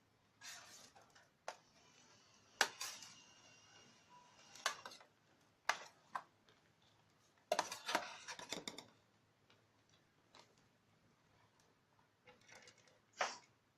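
Metal kitchen utensils clinking and scraping against a baking tray while the cooked chicken and rice are handled, a scatter of sharp clinks, some ringing briefly, with a busier run of them about eight seconds in.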